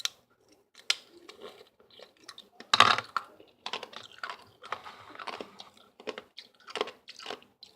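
Ice being chewed close to the microphone: irregular sharp crunches and crackles, the loudest cluster about three seconds in.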